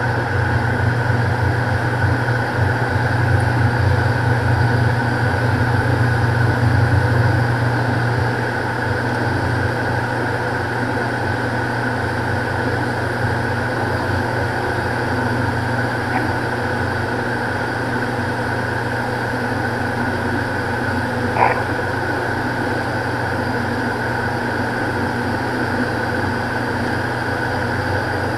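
Cockpit drone of a Beechcraft King Air's twin PT6A turboprop engines and propellers in flight: a steady low hum with a higher whine over it, easing slightly about eight seconds in. A single short click about two-thirds of the way through.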